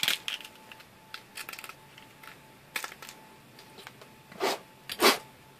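HDX PVC deburring tool scraping and shaving a 3D-printed plastic bracket to ease a fit that is still a little tight. Short scrapes and clicks come in quick runs, then two longer scrapes near the end.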